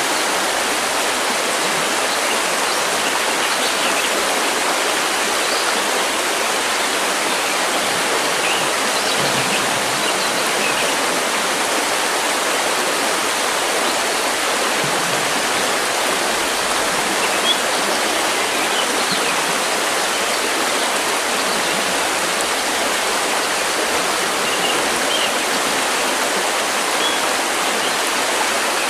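River water rushing steadily, with faint short bird chirps now and then.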